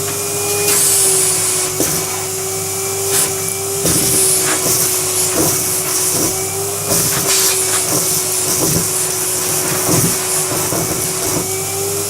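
Numatic Henry canister vacuum running with a steady whine, sucking dirt out of an overfull vacuum-cleaner dust bag, with irregular clicks and bursts of hiss along the way.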